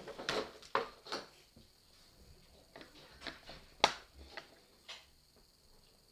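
A string of light clicks and knocks from small objects being handled by hand at a table, the sharpest click a little under four seconds in.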